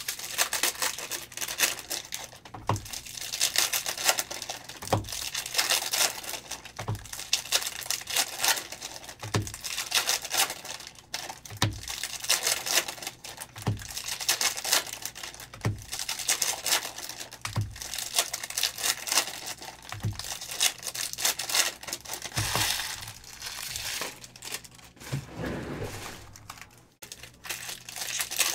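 Foil trading-card pack wrappers crinkling and tearing as packs are ripped open one after another, with a soft low thump about every two seconds.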